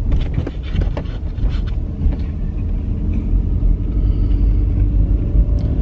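Car cabin rumble from a car being driven at low speed, steady and deep, with a few light clicks in the first couple of seconds.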